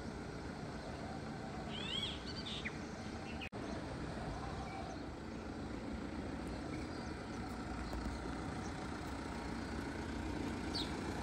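Outdoor background noise, a steady low rumble, with a bird chirping briefly about two seconds in and again at the end. The sound cuts out for an instant about three and a half seconds in.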